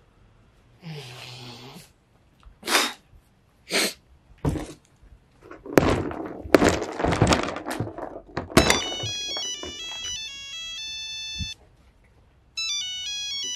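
Walnuts being cracked with blows on a wooden table: a few separate sharp knocks, then a quick run of them. Then a mobile phone ringtone plays an electronic melody of stepped tones, stops briefly and starts again near the end.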